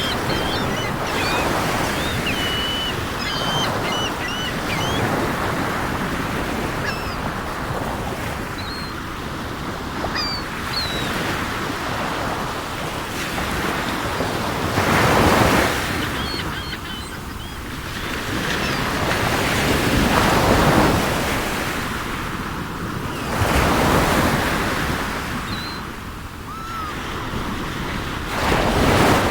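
Sea waves breaking and washing ashore in repeated swells, with seagulls giving short high calls over them, most often in the first ten seconds and again now and then later.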